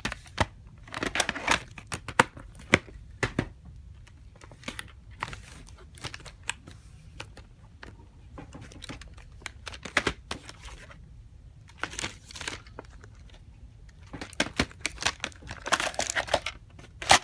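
Plastic VHS clamshell cases being handled: irregular clicks, knocks and crackling rustles as the cases are opened, shut and slid against each other, in clusters with quieter gaps.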